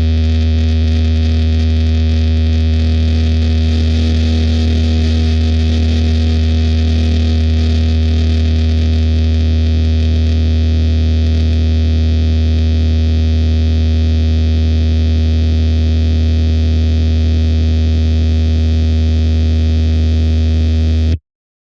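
Designed drone sound effect: a steady, heavily distorted low hum with crackles over it, holding level and cutting off suddenly near the end.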